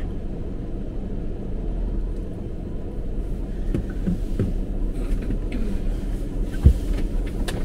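Ram ProMaster van's engine idling, a steady low rumble with a deep hum under it. A single dull thump comes near the end.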